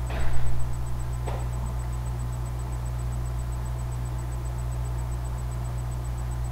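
Steady low electrical hum with hiss. A brief burst of noise comes near the start, and a faint click about a second later.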